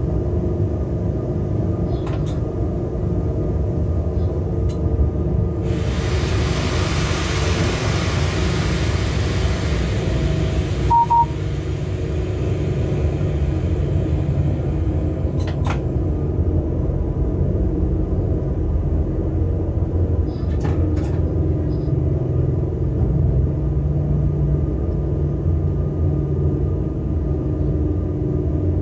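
Freight locomotive cab rumbling steadily on the move. About six seconds in, a hiss starts and runs for about five seconds, stopping suddenly; just after it comes a short double beep from the cab equipment, with a few faint clicks later on.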